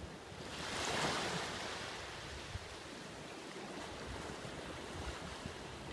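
Gentle surf washing in over sand and seaweed-covered rocks in shallow water. A louder rush of a wave comes about a second in, then a steady wash.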